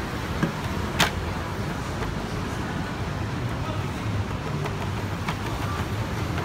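Steady city street traffic rumble, with one sharp click about a second in and a few fainter ticks.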